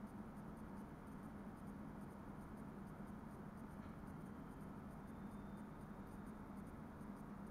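Steady running noise of an NS Sprinter Lighttrain electric trainset heard from inside the driver's cab: a soft rumble with a constant low hum and faint ticking.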